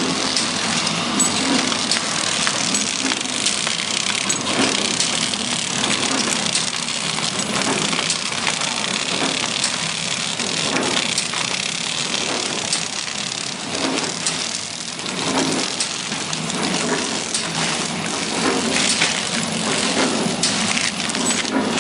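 Instant-noodle pillow-bag packaging machine running: a steady mechanical clatter with a regular, repeating beat.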